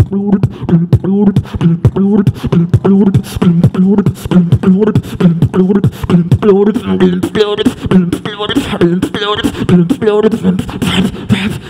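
Human beatboxing into a microphone: a fast, steady beat of kick and snare sounds made with the mouth over a repeating hummed bass line, with warbling pitched vocal effects joining in the second half.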